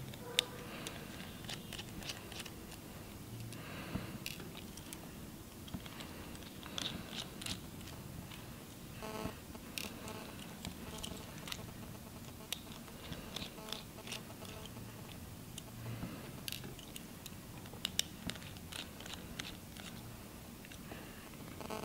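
Scattered small clicks and light ticks of a precision screwdriver backing tiny screws out of the metal back plate of an iPhone 6 screen assembly, with small parts being handled, and one brief ring about nine seconds in.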